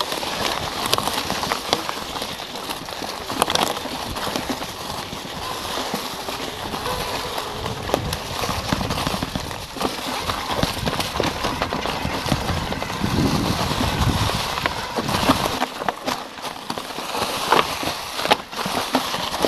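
Mountain bike descending a rough forest trail: tyres rolling and crunching over dry leaves and dirt, with the bike clattering and knocking over bumps and roots.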